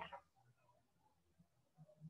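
Near silence: faint room tone in a pause between spoken sentences.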